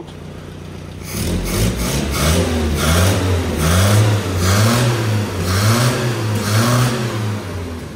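Mazda 1800's carburetted 1.8-litre four-cylinder engine, still a little cold, idling and then revved by hand at the carburettor throttle in quick repeated blips. The revs rise and fall over and over, then settle back toward idle near the end.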